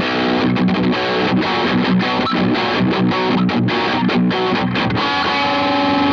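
Squier Paranormal Cabronita Baritone Telecaster played through an overdrive pedal, moving through a run of distorted notes and chords, with one note left ringing near the end.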